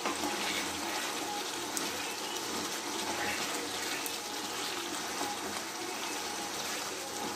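Chicken curry gravy bubbling and sizzling in a nonstick kadai as a spatula stirs chunks of capsicum, onion and chicken through it: a steady, watery simmer.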